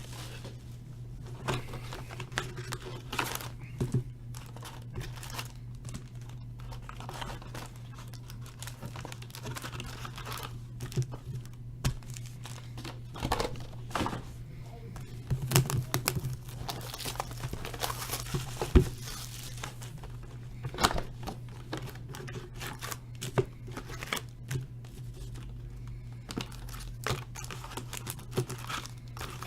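Plastic shrink wrap being torn and crinkled off sealed boxes of trading cards, in irregular crackling bursts with occasional sharper snaps, over a low steady hum.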